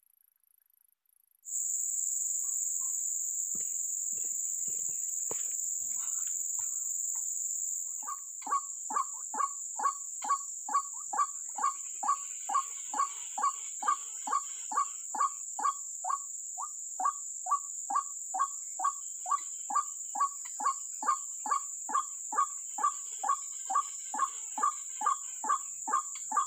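White-breasted waterhen (ruak-ruak) calling: a long, even run of harsh 'kwak' notes, about two and a half a second, starting about eight seconds in. A steady high insect drone starts abruptly after a second and a half, with a few soft rustles before the calls begin.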